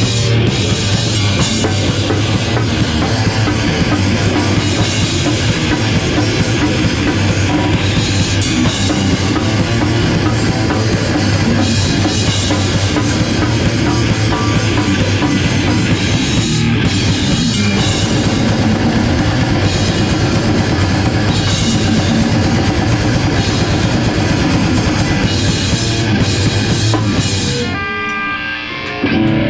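Live rock band playing loudly: drum kit with heavy bass drum under a dense wall of guitar and bass. Near the end the drums stop and a few sustained guitar notes ring out.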